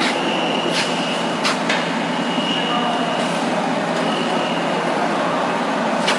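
Fried instant noodle production line running: a steady mechanical noise with a high, thin whine that comes and goes, and a few sharp metal clacks, two of them close together about a second and a half in.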